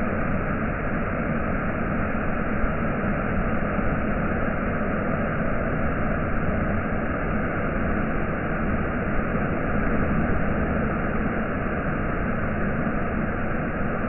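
Waterfall pouring down onto boulders: a loud, steady rush of falling water that does not let up.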